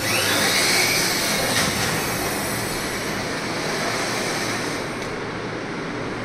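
Automatic bandage rolling and cutting machine running: a steady mechanical noise with a strong hiss. It jumps up suddenly at the start, with a faint rising whine in the first second, and eases off a little about five seconds in.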